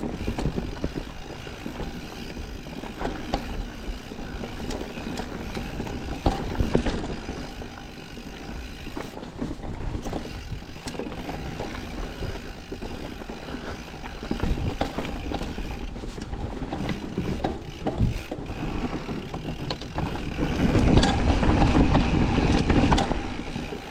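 Mountain bike riding down a dirt trail: a steady rush of tyre and wind noise with scattered clicks and rattles, getting louder for the last few seconds.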